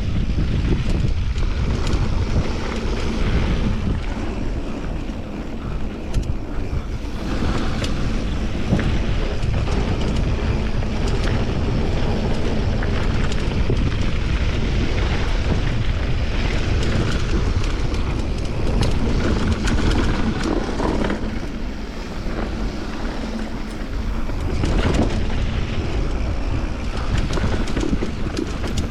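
Wind buffeting the microphone of a camera carried on a mountain bike during a fast trail descent, over a steady low rumble of tyres on dirt, with frequent small knocks and rattles.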